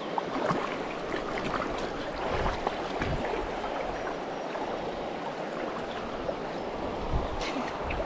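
River current running over a shallow, rocky riffle, a steady rush with small splashes and gurgles. A few brief low thumps sound against the microphone along the way.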